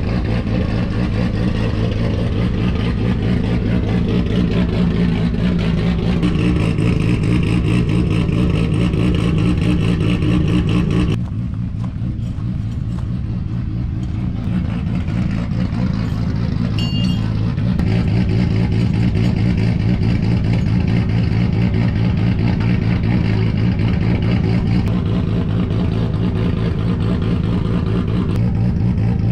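Pro drift car's engine idling steadily as it warms up after starting.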